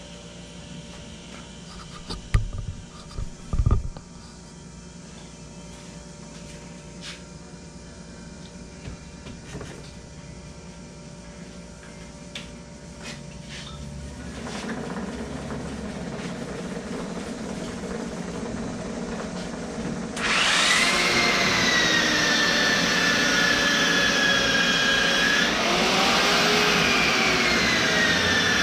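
A few knocks, then, about two-thirds of the way in, a 7-inch angle grinder fitted with a 150-grit sanding disc starts up loud with a steady high whine. Near the end its pitch sags briefly as it is pressed into a go-kart tire's tread to sand it.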